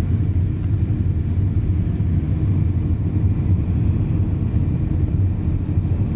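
Steady low rumble of a car heard from inside the cabin while driving: engine and tyres running over a cobbled street.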